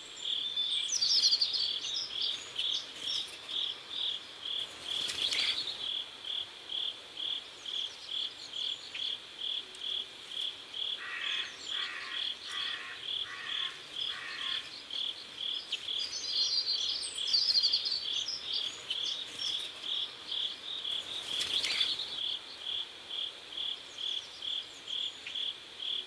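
Cricket chirping steadily in an even rhythm, about two chirps a second.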